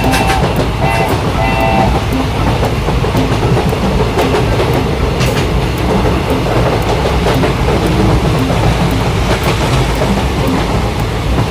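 Train running along the rails: a steady rumble with clickety-clack clicking throughout and a few short pitched tones in the first two seconds.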